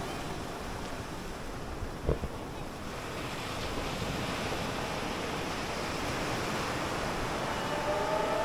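Ocean surf washing on a beach, with wind buffeting the microphone, slowly growing louder; a brief knock about two seconds in.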